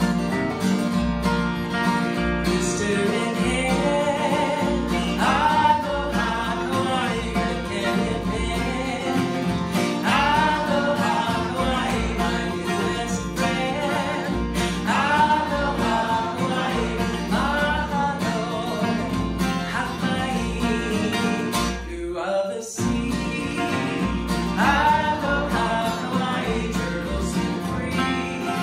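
Two acoustic guitars playing an upbeat country-folk tune, with a woman singing over them. The music drops out briefly about three-quarters of the way through, then carries on.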